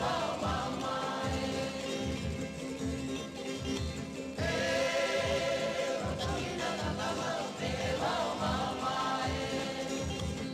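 Background music: a choir singing sustained chords over instruments, swelling into a new phrase about four seconds in.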